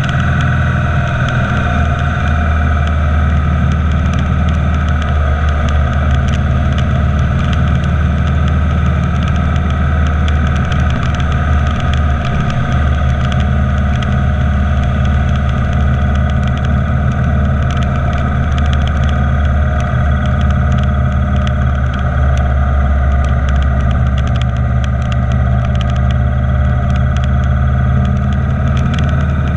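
Motorcycle engine running steadily at highway cruising speed, with wind and road noise; the low engine note dips briefly about twelve seconds in.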